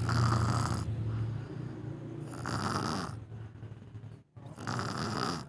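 A child snoring, three snoring breaths about two seconds apart, the first with a low rattling drone. The snoring is put down to exhaustion.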